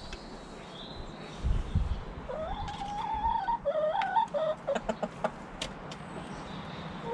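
Domestic hen giving a drawn-out, wavering call lasting about two seconds, followed by several short clucks and sharp ticks. A low thump sounds about a second and a half in.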